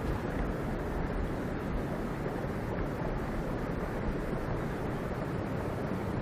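Steady low rushing of wind on the microphone.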